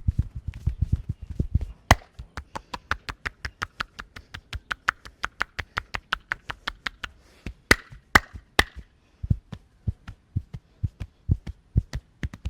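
Massage hands striking the body in a fast rhythmic chopping and tapping percussion. Dull thumps give way to sharper clicking strikes at about eight a second, with three louder sharp slaps near the middle before the thumps resume.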